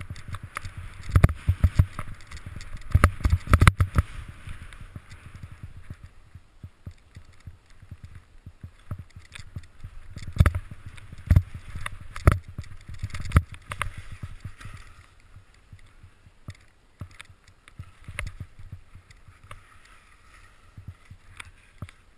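Skis sliding and turning through deep fresh powder snow: a swishing hiss with many sharp thumps and knocks among it. The hiss and knocks are strongest in the first few seconds and again around the middle, and die down near the end.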